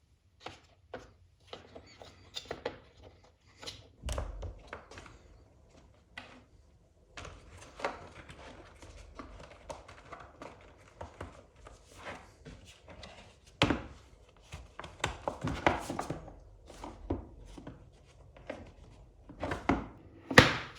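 Hands handling the cordless screwdriver and its packaging: irregular clicks, knocks and rustling, with a sharper knock near the end.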